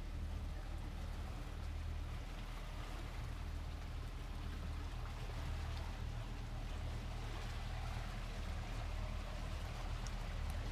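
A fishing boat's engine running steadily at low speed, a low hum under an even hiss of water.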